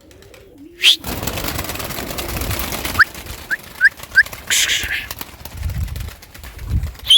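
Domestic pigeons cooing briefly, then about six seconds of loud rushing noise with a few short rising chirps in the middle.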